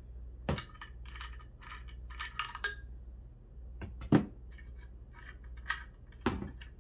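Metal clinks, taps and knocks from a scrap faucet being handled and worked at, its metal parts knocking together in small clusters, with the loudest knock about four seconds in.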